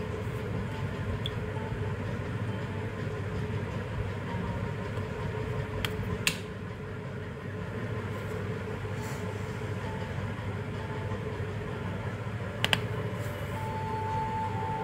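Steady low background rumble, broken by sharp clicks from handling an open OnePlus Nord Buds charging case: two about six seconds in and another near the end.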